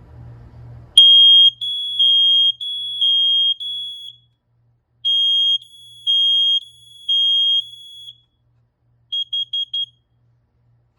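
BRK SC6120B smoke and CO alarm sounding on test together with a second BRK alarm interconnected to it: loud high-pitched beeps in two groups, two slightly different pitches overlapping, then four quick short chirps near the end. The second alarm joining in shows the interconnect now works, with the common rail connected along with the communication wire.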